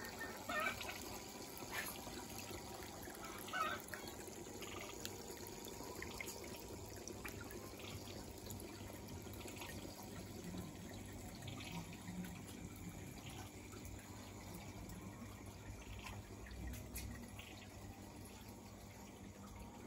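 Steady trickle of running water from a model nativity scene's water feature, with two short louder sounds about half a second and three and a half seconds in.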